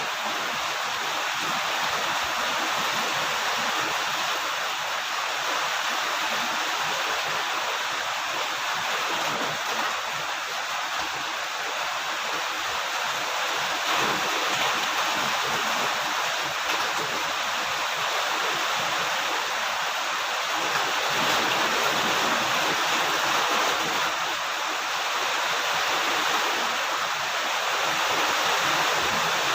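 Heavy rain falling steadily, an even rushing hiss of water.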